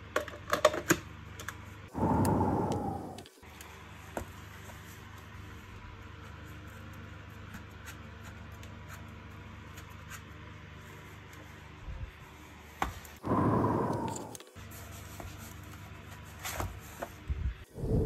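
Hard plastic vacuum-cleaner parts clicking and knocking as they are handled and taken apart, over a quiet steady hum. Twice, about 2 s and 13 s in, there is a loud whoosh lasting about a second that falls in pitch.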